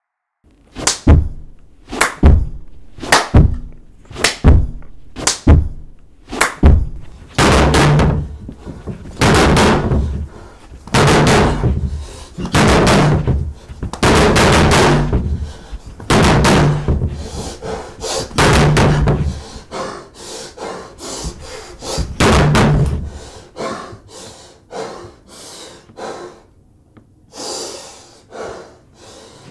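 Fist pounding on a door. It starts as single hard knocks about a second apart, then turns to longer, heavier runs of blows, and thins out into fainter knocks with hard breathing near the end.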